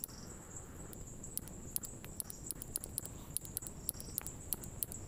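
Small campfire of dry twigs and brush crackling, with scattered sharp pops at irregular intervals, over a steady high-pitched drone of insects.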